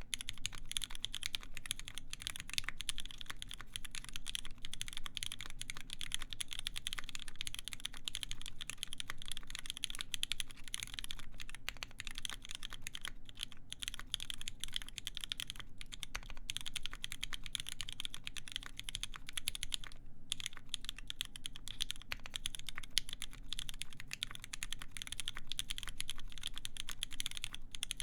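Continuous fast typing on a mechanical keyboard with lubed vintage Cherry MX Black linear switches, full brass plate and GMK doubleshot keycaps: a dense run of keystroke clacks, with a brief pause about two-thirds of the way through.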